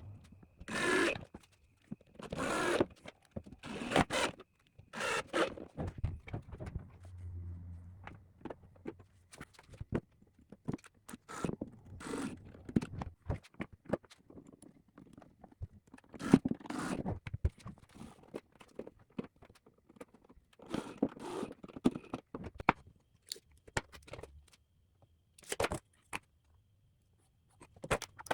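Intermittent short scraping and rubbing sounds, about a dozen, each under a second, with scattered small clicks between them, from hands working with drawer parts and hardware.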